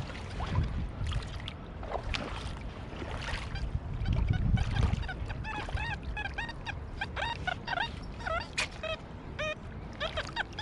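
XP Deus 2 metal detector in polyphony mode on program 3, sounding a run of short warbling beeps, each arching up and down in pitch, as the coil sweeps over a group of buried targets. The run starts about halfway through. Water sloshes low underneath.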